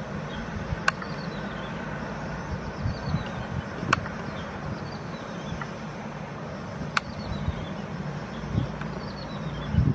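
Steady low rumble like distant traffic, with a sharp click about every three seconds and a few dull knocks near the end.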